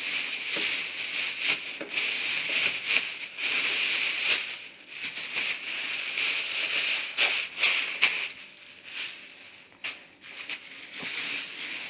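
Plastic bag and packaging rustling and crinkling in irregular bursts, with scattered crackles, as a boxed laptop is handled and unwrapped.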